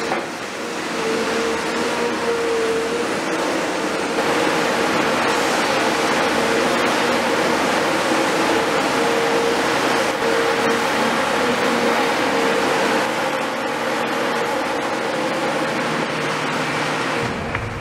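Cat 336F demolition excavator's C9.3 diesel engine and hydraulics running steadily under load, with a steady high whine over the engine noise.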